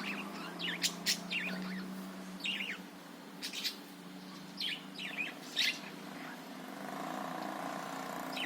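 Budgerigar chirping: short sharp chirps and quick falling warbles, one or two a second and uneven, over a steady low hum.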